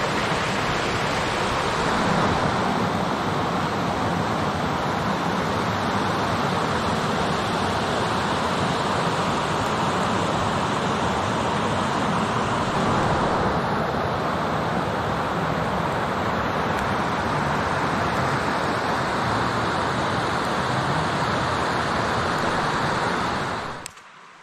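Steady rushing of white water pouring over a forest river's low rocky cascades. It cuts off abruptly near the end, leaving a much quieter scene.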